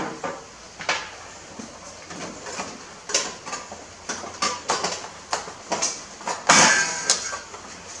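Handling noise from work on a Briggs & Stratton lawn tractor engine as a part is worked loose and lifted off: a string of light clicks and knocks, with a louder scrape about three quarters of the way through.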